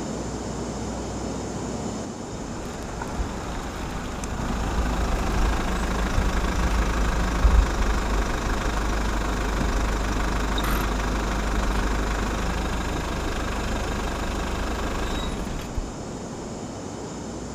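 Motor vehicle engine running with a steady low rumble, louder from about four seconds in until it drops off abruptly near the end.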